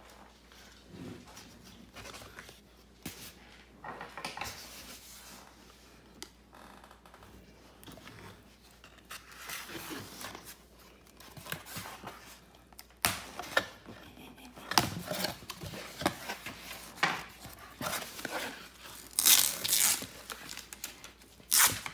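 Cardboard shipping box being opened by hand: packing tape tearing and cardboard scraping and rustling in short, irregular bursts. The bursts come more often and louder from about halfway through.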